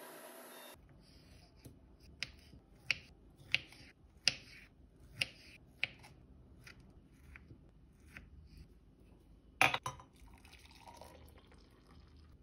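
Kitchen knife cutting kiwi on a wooden cutting board: a string of sharp taps roughly every half second to a second, with one louder clatter near the end. A short soft pour of milk into a glass mug follows just before the end.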